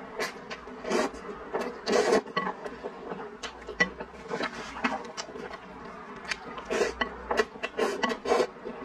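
A person slurping instant noodles in soup from chopsticks: a run of irregular slurps, with chewing between them.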